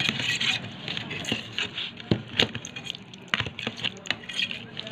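A metal knife chopping set jelly in a clear plastic tub, with irregular sharp clicks and taps of the blade against the plastic, a few a second.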